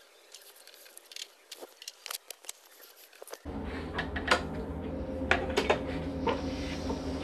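Faint clicks and ticks of a hand tool as the last bolts on a lawnmower engine are snugged up. About three and a half seconds in, a steady low hum starts abruptly, with light clicks and knocks over it.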